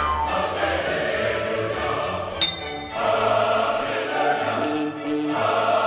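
Choral music with orchestral accompaniment. A short, bright ringing strike about two and a half seconds in.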